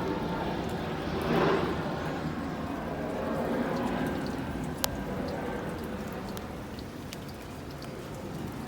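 Rain falling, with scattered ticking drips. A swell of broad noise peaks about a second and a half in, and a single sharp click comes near the middle.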